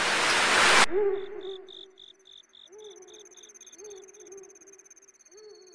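A loud rushing noise swells and cuts off abruptly just under a second in. What follows is a night-forest ambience: an owl hooting four times and insects chirping in a quick steady pulse of about four or five a second, which stops a little past halfway.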